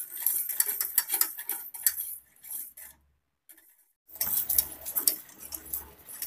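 Wire whisk clicking and scraping rapidly against a stainless-steel saucepan while whisking a thin cocoa-milk chocolate sauce as it heats, kept moving so it stays lump-free as the cornflour thickens it. The clicking breaks off for about a second midway, then resumes.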